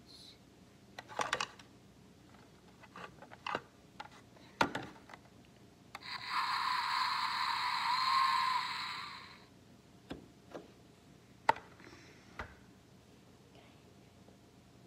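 Scattered sharp clicks and knocks from a tabletop hockey game's plastic players and rods, with a loud, steady rushing hiss lasting about three seconds midway.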